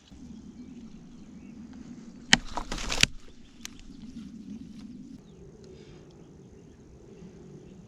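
A faint steady low hum, with a short burst of sharp clicks and knocks about two and a half seconds in and one more click a second later.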